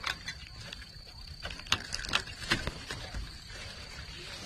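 Twigs and leafy branches snapping and rustling as someone pushes through dense brush, a run of sharp cracks with the loudest in the middle. A thin steady high tone sounds behind them and stops near the end.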